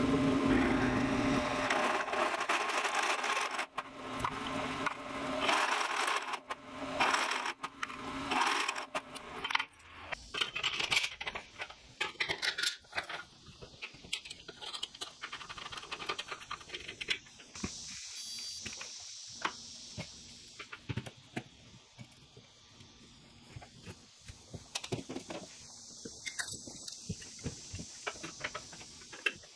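Drill press with a step drill bit cutting pivot holes through square steel tube, a loud grinding cut in several bursts over the hum of the motor for the first nine seconds or so. After that, scattered metallic clinks, knocks and scrapes as the steel tube legs and their bolts are handled and fitted.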